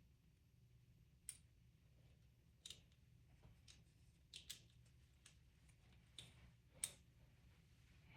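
Faint, scattered clicks and light knocks of 3D-printed plastic parts being handled and fitted together, about six over several seconds with the sharpest one near the end, over a low steady hum.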